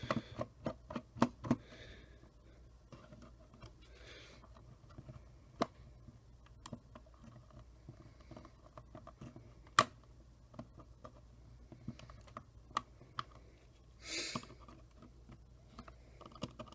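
Scattered small clicks and taps from handling the plastic and metal parts of a camcorder, its tiny screws and a small screwdriver during disassembly. There is a quick cluster of clicks at the start and one sharper, louder click about ten seconds in. A short soft rush of noise comes near the end.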